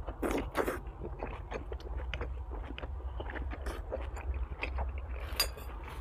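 A person biting and chewing food, with irregular crunches and small clicks, the strongest near the start and about five and a half seconds in. A steady low hum runs underneath.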